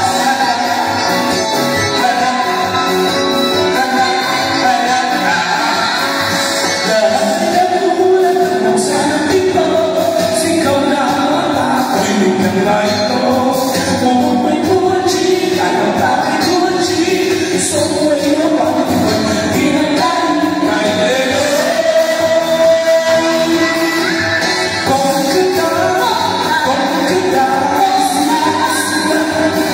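A song sung live into microphones over loud backing music, with a man and a woman singing.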